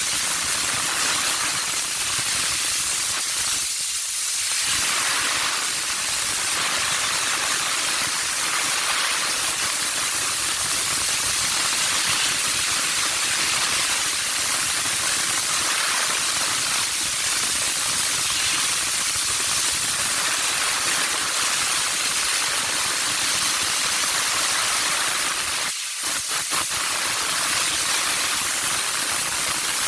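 Handheld steam-cleaning wand blasting a jet of steam, a loud steady hiss with a couple of brief dips.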